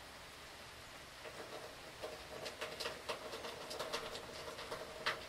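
Storm rain dripping onto a hard surface in irregular taps over a faint, steady rain hiss, with one loud drip just after five seconds. A low steady tone comes in about a second in and holds under the drips.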